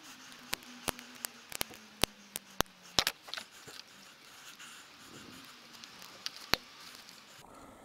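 Sharp plastic clicks and taps as the winch's control box cover and its wiring are handled: a quick string of them over the first three seconds or so, then two more near the end.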